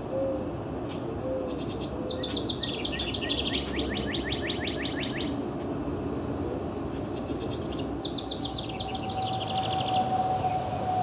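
House wren singing twice, once about two seconds in and again about seven seconds in. Each song is a fast run of trilled phrases that steps down in pitch and ends in a lower, even trill. A faint steady tone comes in near the end.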